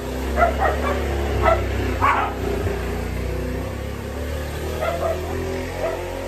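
A dog barking in short yaps, several in quick succession in the first two seconds and two more near the end, over a low rumble.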